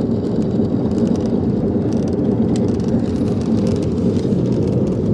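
Yamaha Exciter jet boat's engine running steadily.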